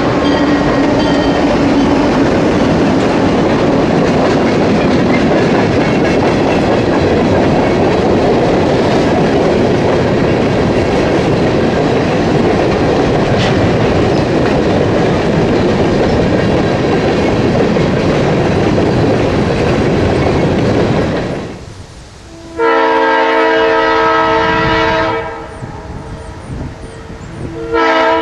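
A freight train's cars rolling past, a loud steady clatter of wheels on rail for about twenty seconds. After a short drop, a locomotive's multi-chime air horn sounds one long blast, and another starts near the end.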